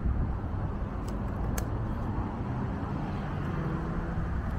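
Steady low outdoor rumble of distant road traffic, with two brief faint clicks about a second and a second and a half in.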